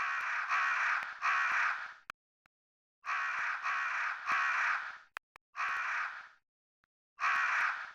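Crow cawing: three caws in quick succession, a pause of about a second, three more, then two single caws near the end.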